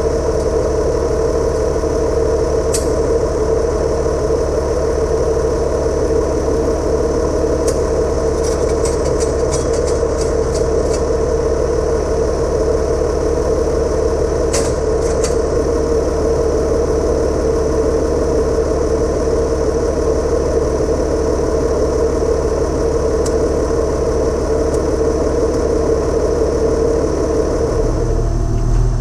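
International Harvester 1066 tractor's diesel engine idling steadily, with a few faint clicks while the baler is hitched to it. Near the end it gives way to a deeper rumble as the tractor drives off.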